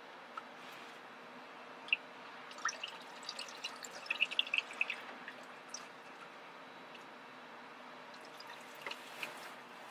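Faint fluid dripping, with scattered small clicks and a quick run of drips about three to five seconds in.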